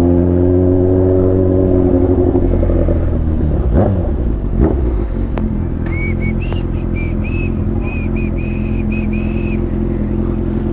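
Motorcycle engine running on the road, its note falling over the first couple of seconds as it slows, then holding steady. A run of short high-pitched tones sounds over it from about halfway through until near the end.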